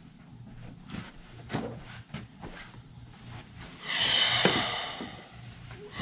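A few footsteps and light knocks as a person carries a boxed plaque toward the chair, then a loud breathy rush lasting about a second, near the middle, as he sits down with the box.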